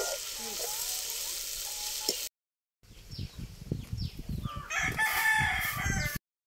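Chopped onions, tomatoes and chillies sizzling in oil in a large aluminium pot, with a few ladle clicks. After a brief break, a rooster crows loudly over a low rumble, starting about four and a half seconds in.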